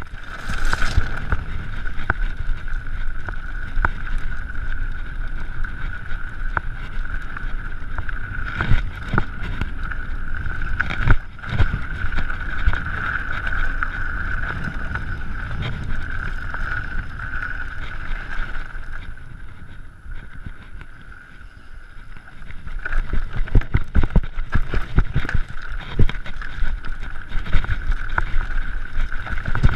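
Mountain bike ridden fast over dirt and loose rocky trail: wind buffeting the microphone and a low rumble, with frequent rattles and knocks from the bike over rough ground, thickest near the end, and a steady high whine throughout.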